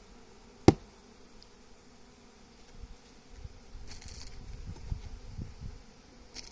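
Honeybees buzzing around an opened hive, with one sharp, loud crack less than a second in: a hive tool breaking the propolis seal on the hive's cover. Dull knocks of hive parts being handled follow a few seconds later.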